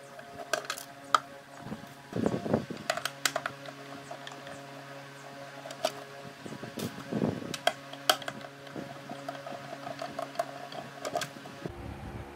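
Screwdriver backing the screws out of the plastic base of a Philco food processor: scattered small clicks and ticks of screw and plastic, with louder scraping and handling of the base about two and seven seconds in, over a steady background hum.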